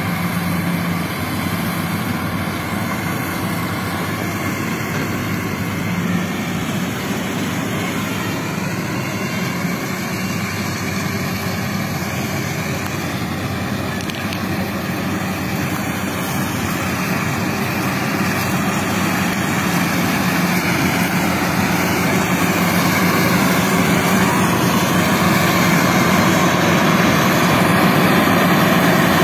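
Combine harvester running steadily, its engine and machinery making a continuous mechanical noise that grows gradually louder over the second half.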